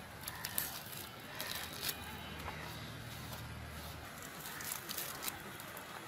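Ripe palm fruit (palmyra/tal) having its dark skin peeled and torn away by hand: irregular crackling and tearing of the fibrous rind. A low hum runs underneath for a couple of seconds in the middle.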